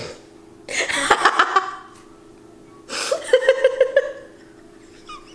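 Women laughing in two bursts: one about a second in and another around three seconds in, each about a second long.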